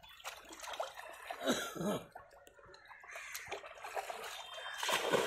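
Water splashing and sloshing around men wading in shallow pond water as they handle a drag net and a large carp, with a short cough-like vocal sound about a second and a half in and a louder splash near the end.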